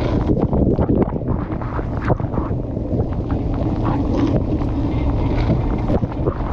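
Dishwasher wash cycle heard from inside the tub: water jets spraying and splashing against the camera housing over a steady rumble, with irregular splashes and knocks throughout.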